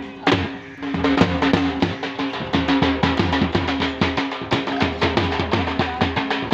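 Music with a fast, steady drum beat over a held bass line.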